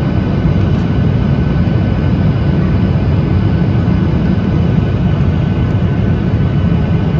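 Steady cabin noise of a Boeing 737-800 on approach, heard from a window seat over the wing: its CFM56-7B turbofan engines and the rushing airflow make an even low rumble, with faint steady tones higher up.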